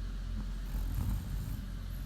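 A woman snoring: a low, steady rumble that swells a little about a second in.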